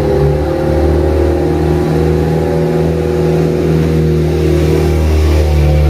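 Truck engine running steadily with a low, even hum, heard from the cab while waiting in a stalled traffic queue.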